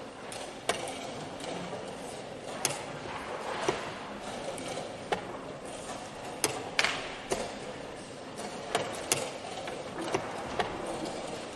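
Wooden chess pieces set down on a wooden board and chess clock buttons pressed during a fast blitz game: about a dozen sharp clicks and taps at an irregular pace.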